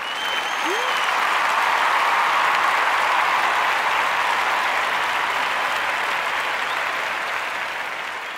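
Crowd applauding, swelling over the first two seconds and slowly fading out, with a brief high whistle near the start.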